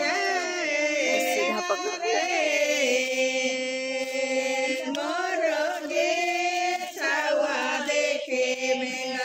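Voices singing a chant-like song in long held notes, each note steady for a second or two, with wavering runs between them.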